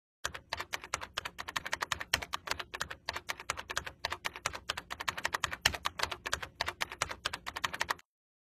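Rapid, uneven clicking, about eight clicks a second, that stops abruptly near the end.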